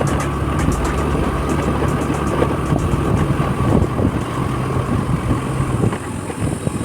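Yamaha ZR scooter engine running while riding, a steady engine note that falls away about six seconds in.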